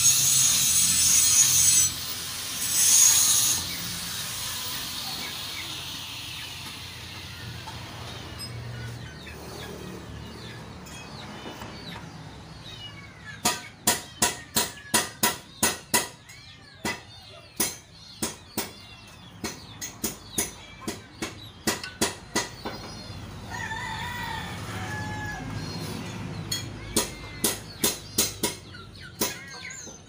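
Runs of sharp clicks, about three a second, starting about halfway through and again near the end, after a loud hiss in the first two seconds. Birds chirp faintly in the background.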